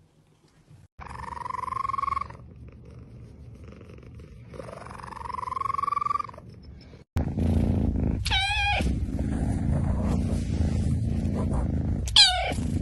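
Cats purring and meowing. In the first half come two drawn-out meows. From about seven seconds in there is loud, steady purring, broken three times by short, wavering mews.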